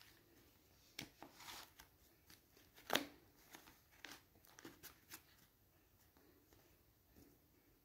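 Near silence with a handful of faint clicks and short rustles, the sharpest about three seconds in.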